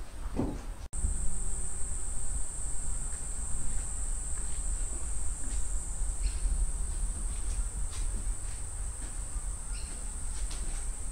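Insects droning steadily in one high, unbroken note, starting after a brief cut in the sound about a second in, over a constant low rumble. A few faint clicks are scattered through.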